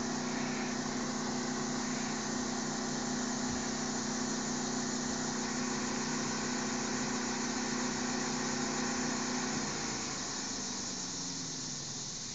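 1991 Chevrolet Camaro's engine idling steadily. The engine note stops about ten seconds in, leaving a fainter steady hiss.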